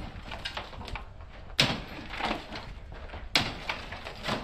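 Demolition knocks and clatter as metal ceiling rods and lath are pulled and pried loose: two sharp knocks, the first about a second and a half in and the second nearly two seconds later, with lighter rattling between.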